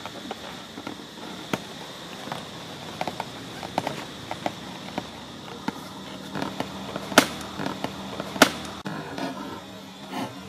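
Macaques handling large inflated balls on dry leaf litter: scattered taps, rubs and crackles, with two sharp loud clicks about two-thirds of the way through.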